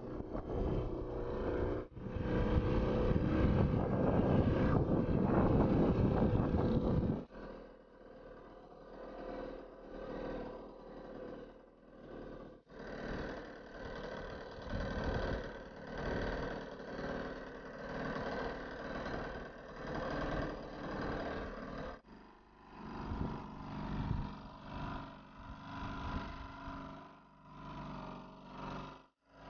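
Small 1.2 hp Sears Gamefisher outboard motor running steadily at cruising speed, with heavy wind on the microphone for the first seven seconds. After that the engine's hum is quieter and clearer, and the sound changes abruptly a few times.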